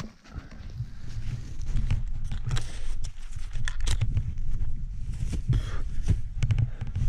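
Ice axe being planted into firm snow and crampons kicking steps, a quick series of crunching strikes, over a heavy low rumble on the action camera's microphone.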